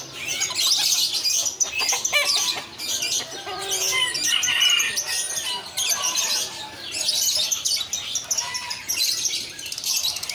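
Many caged birds chirping and twittering at once, a dense, unbroken chatter of short high calls.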